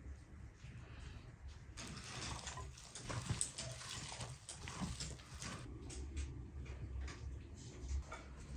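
Hands mixing and kneading flour into a soft dough in a bowl, with faint irregular pats and small clicks.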